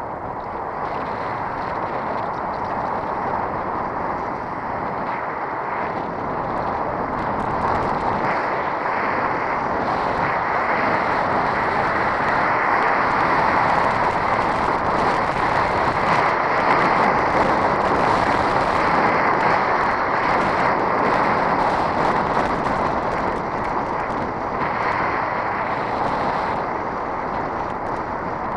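Wind rushing over a bicycle-mounted camera's microphone while riding along a road, mixed with tyre noise on the asphalt: a steady rush that grows louder toward the middle and eases off near the end.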